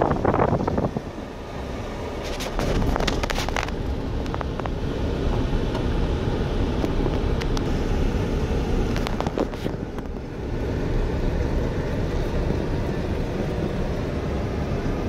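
Car driving slowly on a gravel road, heard from inside the cabin: a steady low rumble of engine and tyres, with clusters of short clicks and knocks about three seconds in and again around nine seconds.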